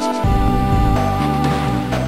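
Electronic Amiga intro music: a long held lead note over a stepping bass line, with a drum hit just after the start.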